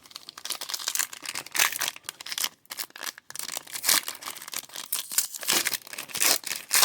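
Foil wrapper of a trading card pack crinkling and tearing as it is opened by hand: an irregular run of sharp crackles and rustles.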